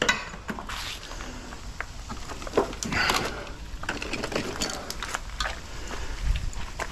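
Irregular knocks, clinks and crunches of loose broken rock and scrap metal being stepped on and handled, with one sharp click about two and a half seconds in.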